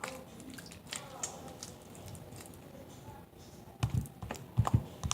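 Sticky homemade slime being kneaded by hand, making small wet clicking and crackling sounds, with a few louder thumps near the end.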